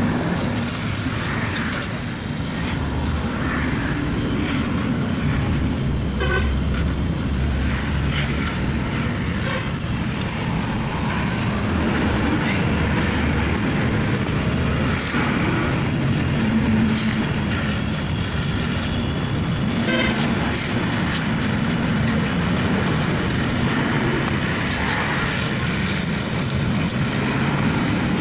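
Oxy-acetylene torch flame hissing steadily while welding a flexible exhaust pipe joint, over a background of street traffic with a few short horn-like toots.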